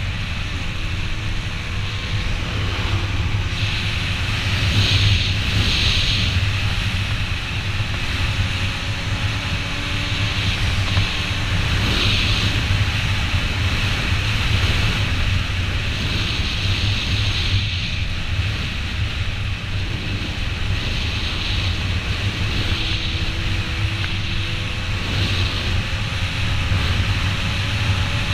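An engine running steadily, its pitch drifting slowly up and down, over a constant low rumble.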